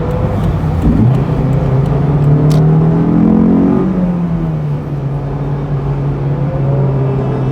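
Honda S2000's 2.2-litre F22C1 four-cylinder engine pulling under way: the revs jump about a second in and climb for a few seconds, then drop back about halfway through and hold a steady cruise.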